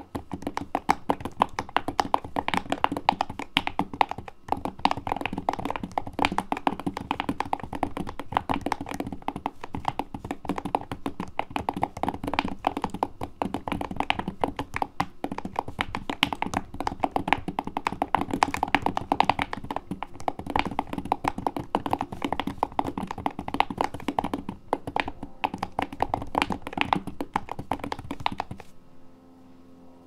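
Fast typing on a small mechanical keyboard fitted with knurled, knob-shaped metal keycaps: a dense, irregular run of key clicks, pausing for about a second near the end.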